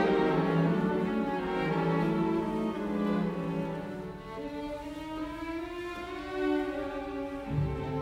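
Background music of bowed strings, violin and cello, playing slow held notes, with a deep bass note coming in near the end.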